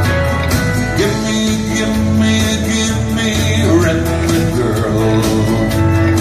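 Country song played on an amplified acoustic guitar: steady strumming over a low bass line, with a long held melody note coming in about a second in and bending a little past the middle.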